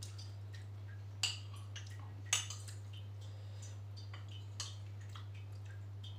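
Metal spoon clinking against a glass bowl of bakso soup, two sharp clinks about a second apart and a lighter one later, with small wet eating sounds between. A steady low hum runs underneath.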